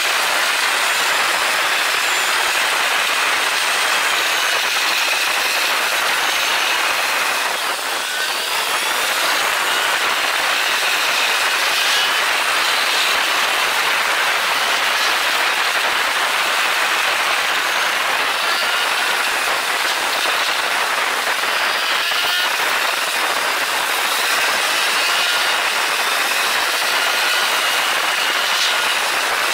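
Steady rushing wind and road noise of a Suzuki SV400S motorcycle under way, with a short dip about eight seconds in.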